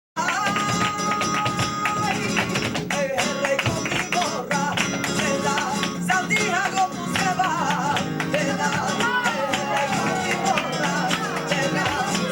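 Live flamenco bulería: a voice singing over flamenco guitar, with a held note in the first two seconds. Sharp percussive hits keep the rhythm throughout.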